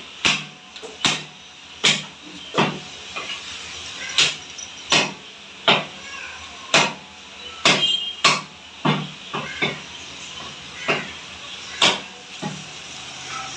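Heavy curved fish-cutting knife chopping through trevally (paarai) chunks, bone included, into a wooden log chopping block. Repeated sharp chops, about one every half-second to second, slightly irregular.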